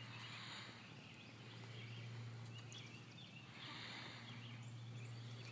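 Faint outdoor ambience: small birds chirping now and then over a steady low hum.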